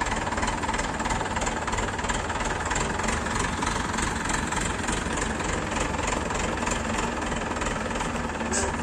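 Diesel engine of a mobile crane running steadily under load as it lifts a machine on its hook, with an even clattering beat. A short hiss comes near the end.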